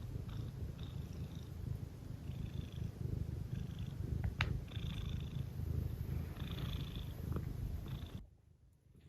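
A cat purring steadily and close up, with a single sharp click about four and a half seconds in. The purring cuts off suddenly about eight seconds in.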